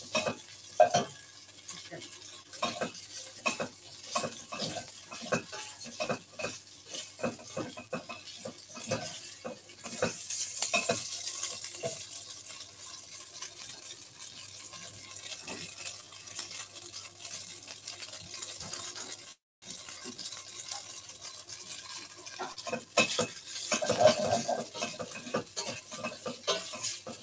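Tofu cubes sizzling as they fry in oil in a hot pan, with a utensil stirring and scraping them and frequent small knocks against the pan. The sizzle swells twice, and the scraping comes as the browning tofu starts to stick to the pan.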